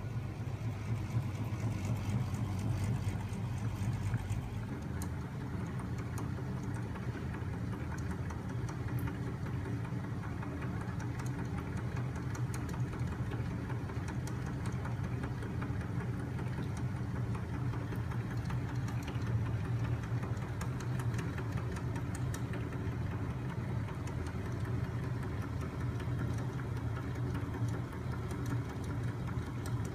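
Home-built magnet engine demonstrator running steadily: a battery-powered electric motor spinning a flywheel on a crankshaft, giving a steady low mechanical hum with faint clicking over it.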